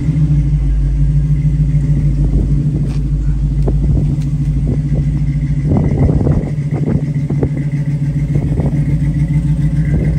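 A 5.3-litre LS V8 swapped into a 1949 Chevrolet 3100 pickup idling steadily just after being started, heard from inside the cab. A few light knocks come about halfway through.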